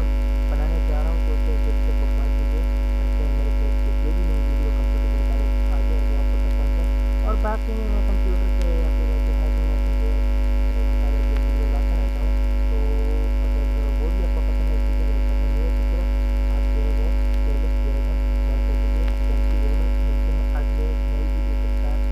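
Loud, steady electrical mains hum, with faint wavering sounds beneath it that come and go.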